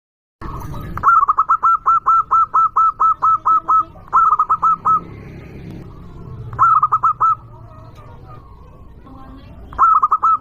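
Zebra dove (perkutut) cooing loudly: a long run of about a dozen quick, even notes, then three shorter bursts of three or four notes each, over a low background hum.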